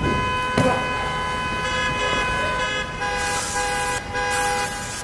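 Instrumental passage of a pop song: sustained synthesizer chords that shift a couple of times, with a hissing swell of noise near the middle.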